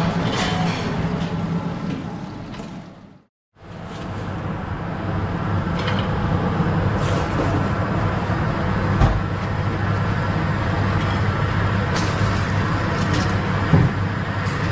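Steady drone of a commercial kitchen's extraction canopy and equipment, with a low hum, and a few sharp clinks of metal tongs against a stainless-steel bowl of chips. The sound cuts out briefly about three seconds in.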